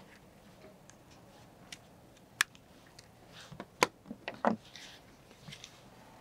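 Scattered light clicks and taps, two of them sharper, as small plastic circuit breakers are handled and set down on a teak deck.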